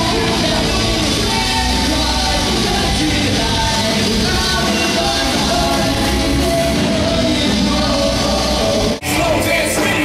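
Live rock band playing loud: electric guitar, bass guitar and a drum kit with a sung lead vocal, heard from within the audience in a large hall. About nine seconds in the recording cuts abruptly to another song.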